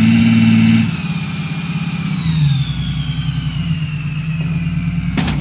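Tank engine sound effect: a heavy engine running with a low pulsing drone and a high whine that falls steadily in pitch over several seconds, with a click near the end.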